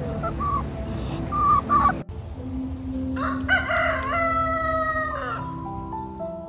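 A rooster crows once, a single drawn-out call of about two seconds that tails off at the end. A few short clucks come before it, over outdoor background noise. Soft music comes in near the end.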